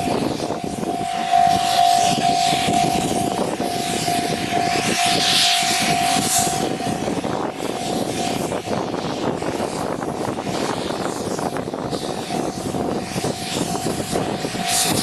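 Mooka Railway steam locomotive running by, a loud continuous rush of exhaust and running noise, with a steady high tone through most of it.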